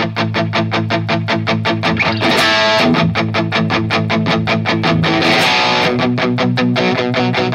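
Telecaster-style electric guitar played through a Valeton GP200 multi-effects preset: a quick, even rhythm of picked chords.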